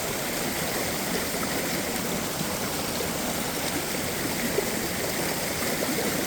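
Steady rush of water from a waterfall and stream.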